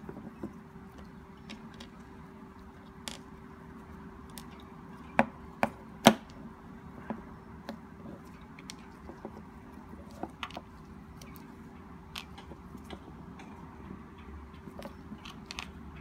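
Small hard plastic clicks and taps as the removable teeth and parts of a clear acrylic dental model are handled, pulled out and pushed back into their sockets, with three sharper knocks about five to six seconds in. A faint steady hum runs underneath.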